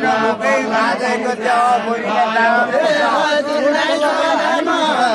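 A group of voices singing a Nepali deuda folk song together, many voices overlapping in a steady chant-like chorus.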